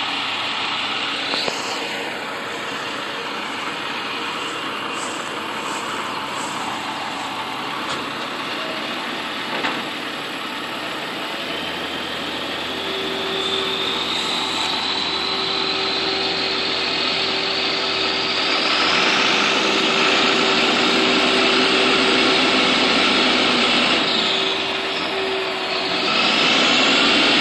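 International rolloff truck's turbodiesel engine working hard under load while the stuck truck tries to pull free, its rear wheels spinning in grass. A turbo whistle rises in pitch about halfway through, and the engine gets louder soon after.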